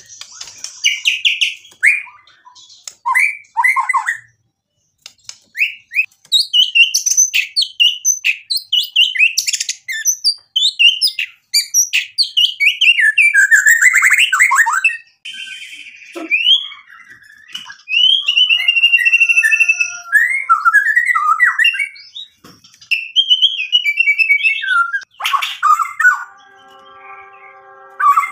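White-rumped shama (murai batu) singing loudly: long phrases of rapid whistles, chirps and trills that sweep up and down in pitch. The phrases are broken by short pauses.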